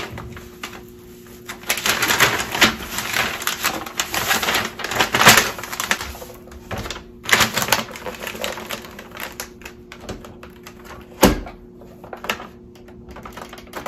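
Plastic vacuum-sealer bag crinkling and rustling in irregular bursts as a cardboard box of baking soda is slid into it and the bag is handled. A single sharp clack near the end as the FoodSaver vacuum sealer's lid is pressed shut.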